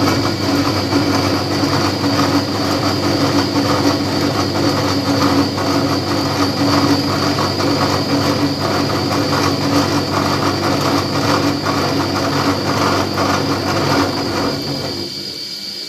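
Automatic axis milling machine running: a steady mechanical drone with a constant high whine, which eases off and gets quieter about fifteen seconds in.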